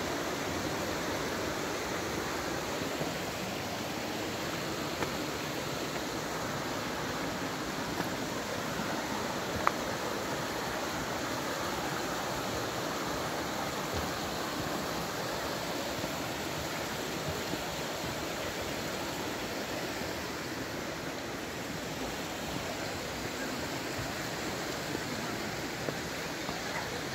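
Steady rushing of a mountain stream's water, an even hiss with no rhythm. One brief tap about ten seconds in.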